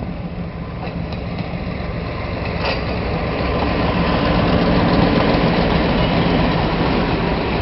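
Train passing at close range: a diesel locomotive's engine hum, then railroad cars rolling by, building to its loudest about halfway through. One sharp click a little before three seconds in.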